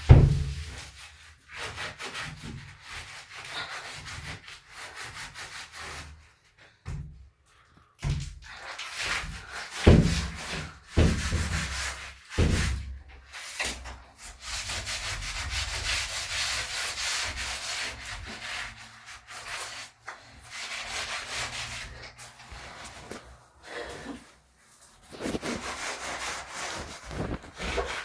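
Cloth rubbing and scrubbing against a wall or floor in long stretches of strokes. There is a thump at the start and a few louder knocks about ten to thirteen seconds in.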